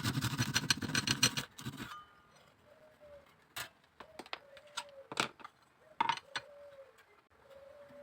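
Bamboo being worked with hand tools: a fast run of scraping clicks for about a second and a half, then scattered light taps and clicks.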